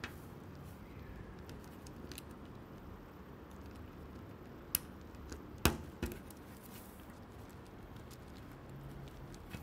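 Plastic pieces of a Meilong 4x4 M magnetic speedcube clicking as they are slid into place around the cube's core, with a few sharper clicks about halfway through, the loudest near the middle, over a faint low hum.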